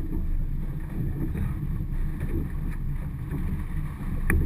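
Wind buffeting the microphone over open water, a steady low rumble, with one sharp click near the end.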